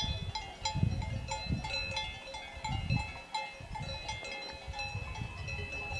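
Cowbells of grazing Brown Swiss cattle clanking and ringing irregularly, many bells at a few different pitches, over an uneven low rumble.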